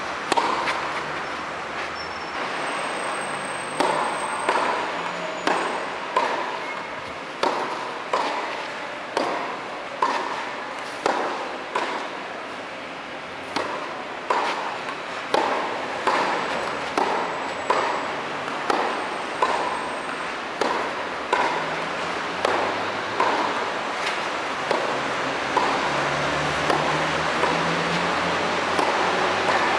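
Tennis rally on a clay court: rackets striking the ball back and forth, with the ball bouncing in between, giving sharp hits about once a second that echo in the indoor hall.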